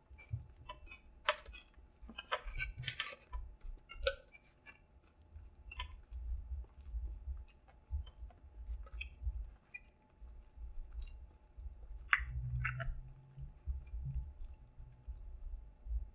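A man chewing a mouthful of chicken sandwich close to the microphone, with irregular small wet mouth clicks.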